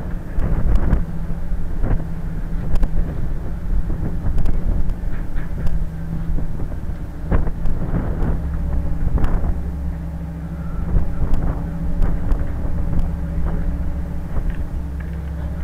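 Car ferry's engine droning steadily under way, with wind on the microphone and scattered short clicks and knocks.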